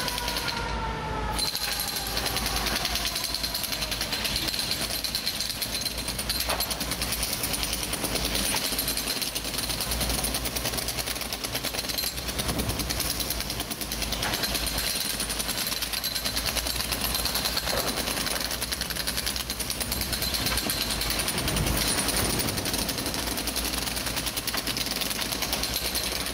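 Pneumatic jackhammer chipping apart an old brick wall: rapid, steady hammering.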